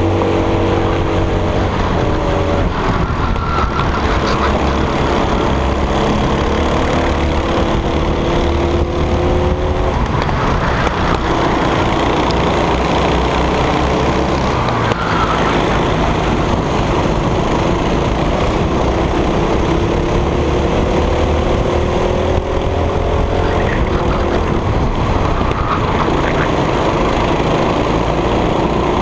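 Racing kart engine heard onboard at full race pace, its pitch climbing as it accelerates and falling away as it slows for corners, several times over, over a steady rushing noise.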